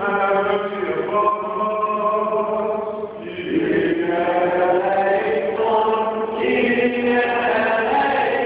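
Greek Orthodox liturgical chant sung by several voices, in long held notes over a steady low note sustained underneath.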